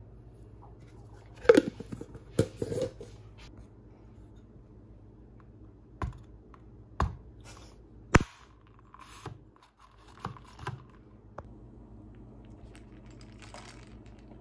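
Scattered sharp clicks and knocks of tableware and a plastic drink cup being handled on a granite kitchen counter, about a dozen over the stretch and loudest in the first half. A brief soft hiss near the end.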